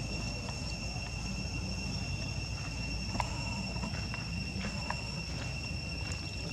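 Steady, high-pitched drone of insects calling on one unbroken pitch, over a low rumble, with a couple of faint clicks about three and five seconds in.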